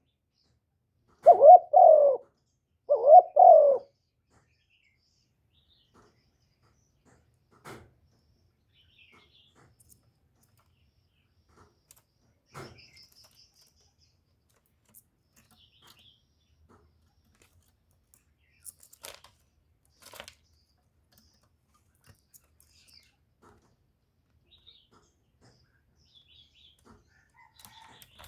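Spotted dove cooing: two phrases within the first four seconds, then mostly quiet with a few faint high chirps and small ticks.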